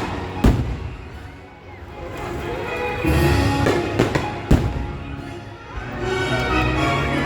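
Fireworks shells bursting over a show's music soundtrack: a sharp boom about half a second in and two more close together around four seconds in, with the music swelling between them.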